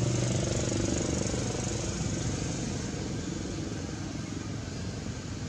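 A motor vehicle's engine running with a steady low hum that fades away over the first couple of seconds, leaving a steady background hiss.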